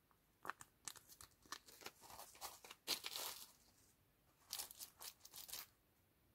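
Thin paper temporary-tattoo sheet crinkling as it is handled and laid down, in two bouts of rustling and small sharp crackles, the second starting about four and a half seconds in.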